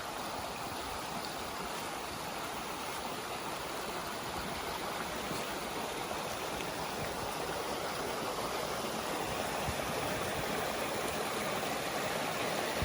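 Jungle river running full after rain: a steady rush of water that grows slowly louder.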